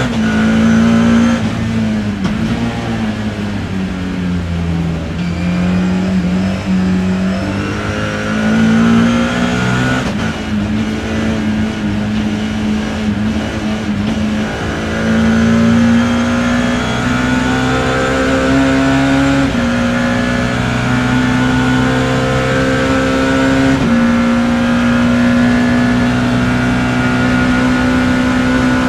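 BMW E30 M3's S14 four-cylinder racing engine heard onboard under racing load. It drops in pitch as the throttle is lifted in the first few seconds, picks up again, then pulls long, slowly rising runs, broken twice in the second half by sudden drops in pitch at the upshifts.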